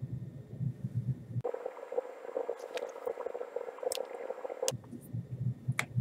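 Plastic pry tool being worked along the edge of a Lenovo ThinkPad T450's base cover, with rumbling handling noise and a few sharp plastic clicks, most of them in the second half, as the tool and cover clips snap.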